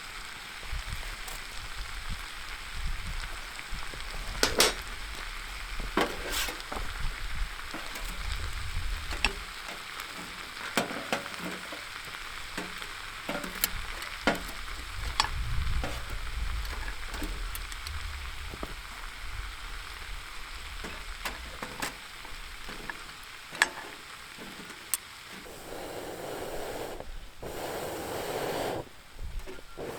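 Food sizzling in a cast-iron skillet over a small wood fire: a steady frying hiss with frequent sharp pops and crackles. Near the end it gives way to a duller rushing noise, broken twice by brief dropouts.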